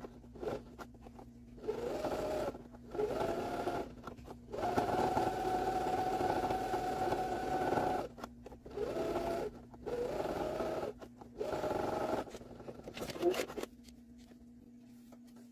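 Electric sewing machine sewing a straight topstitch in a series of short runs, the motor whining up in pitch at the start of each one; the longest run, in the middle, lasts about three and a half seconds. Near the end it stops after a few short clicks.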